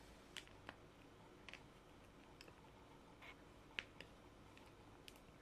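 Faint, scattered clicks and ticks of a thin plastic candy tray being handled while a pick prises a gummy out of its mould, about ten in all, the sharpest a little before four seconds in.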